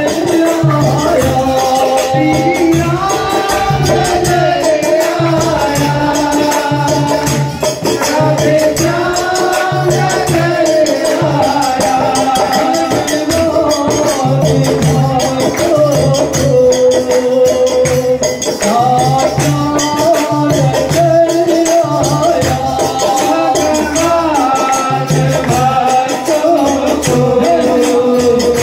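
Devotional Krishna song: a sung melody over a steady drum beat and a rattling, shaker-like percussion.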